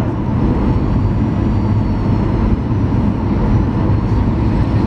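Cabin noise of a Boeing 737-900ER on final approach: a steady roar of its CFM56-7B engines and rushing air, with a faint high whine over it.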